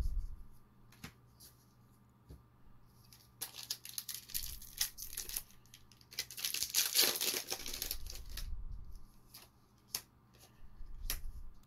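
A foil Magic: The Gathering booster pack wrapper being torn open and crinkled by hand: a stretch of tearing and crinkling that starts about three and a half seconds in, is loudest in the middle and dies away after about five seconds. A few light clicks come before and after it.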